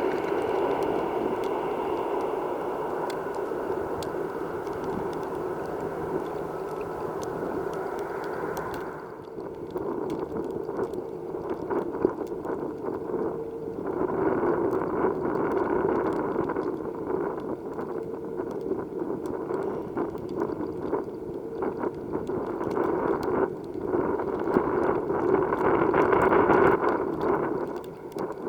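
Jet airliner engines with a steady whine, slowly fading over the first nine seconds. After an abrupt change, gusty wind buffets the microphone with rough crackling, over a faint steady drone that swells twice.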